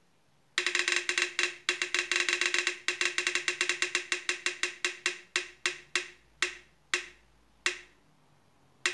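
Wheel-of-fortune phone app's spin sound effect through the phone speaker: a fast run of woody ticks as the on-screen wheel spins, slowing steadily to a few spaced ticks as the wheel comes to a stop.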